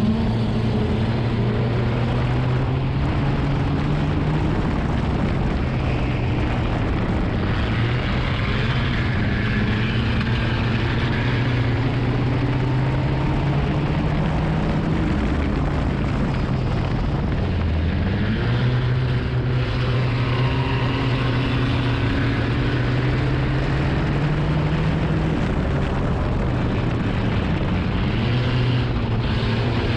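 Nissan enduro race car's engine running hard, heard from inside the cabin, its pitch dipping as the throttle is lifted about halfway through and climbing again under acceleration, with several smaller rises and falls lap after lap.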